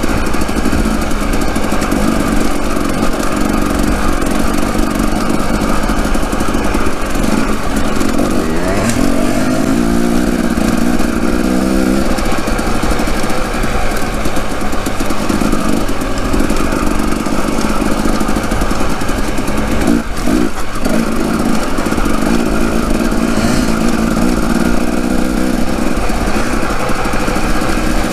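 Off-road dirt bike engine being ridden on a trail, its pitch rising and falling with the throttle. About a third of the way in it revs up in a long climb, it briefly drops off about two-thirds through, and it climbs again near the end.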